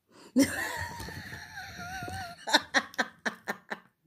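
A person's long, high, wavering vocal squeal, followed at once by laughter in a quick run of about seven fading 'ha' pulses.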